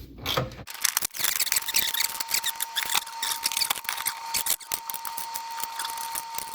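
Screwdriver turning a screw into the wooden cabinet face plate: a dense run of small clicks and scraping, with a thin steady tone from about a second in.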